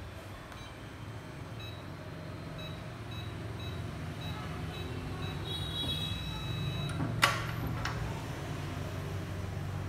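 Electronic keypad of an Aifeibao HK-A1/D-80-JB safe giving a short high beep for each key pressed as a code is entered, then a longer two-note tone as the code is accepted and the lock opens. About seven seconds in comes a sharp clunk of the lock mechanism as the knob is turned, and a lighter click just after.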